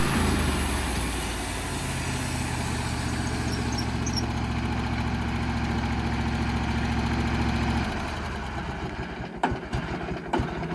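An engine idling steadily with a low hum; the hum drops away about eight seconds in, followed by a few sharp knocks near the end.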